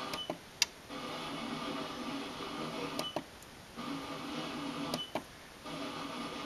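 AM radio static and hum from a digital tuner being stepped across the band, with no station voice coming through. The sound drops out three times, about two seconds apart, each time with a click as the tuner moves to the next frequency.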